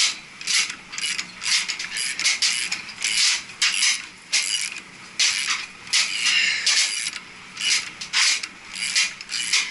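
Ratchet wrench clicking in short repeated strokes, turning the forcing screw of a gear puller to draw a stuck coupling hub off a gearbox shaft. The clusters of clicks come about every half second to a second, with brief pauses between them.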